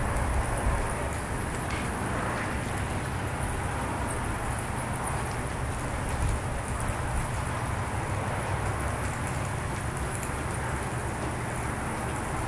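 Steady outdoor background noise: a low rumble with a faint high hiss and flickering ticks above it, with no distinct event standing out.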